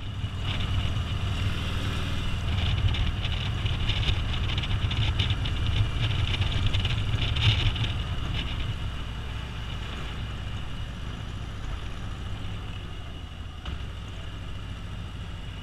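Touring motorcycle engine running at road speed with wind noise over the fairing, a continuous low rumble that eases off somewhat after about eight seconds.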